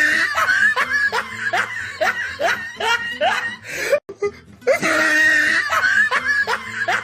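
Evil-laugh sound effect: a laugh in short, separate 'ha' syllables, about two a second, each rising in pitch. The same laugh loop starts over about four seconds in.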